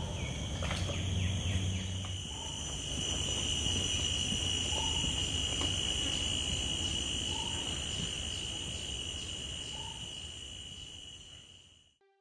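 Steady, high-pitched chorus of insects, with a short bird note repeated about every two and a half seconds; it fades out near the end.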